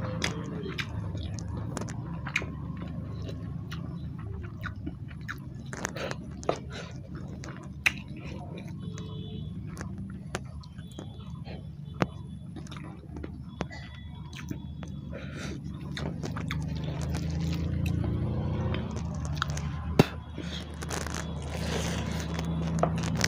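Close-up chewing and mouth sounds of a man eating rice and fish curry by hand: wet smacks and sharp clicks at uneven intervals, with fingers squishing and mixing rice on a steel plate, over a steady low hum.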